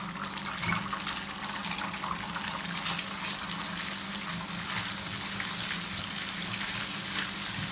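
An egg frying in hot oil in a nonstick pan, sizzling steadily with fine crackles as it is stirred and broken up with a silicone spatula. A steady low hum runs underneath.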